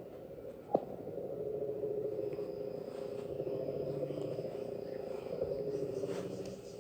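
Buzzing electronic alarm tone of an Emergency Alert System (EAS) alert, held steady at a low pitch, with one sharp click under a second in.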